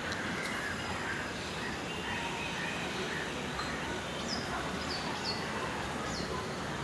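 Steady outdoor background noise, with a bird giving four short, high chirps that slide downward, in the second half.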